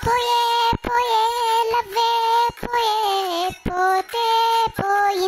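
Background song: a high-pitched singing voice holding long, wavering notes, with short sharp beats between the phrases.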